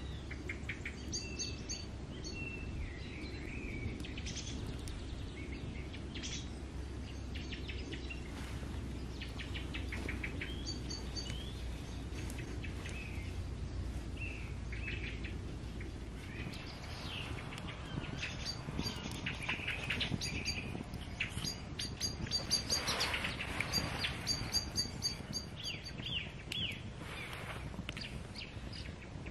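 Several wild birds chirping and singing in quick trills and short calls, busiest in the second half, over a low steady rumble.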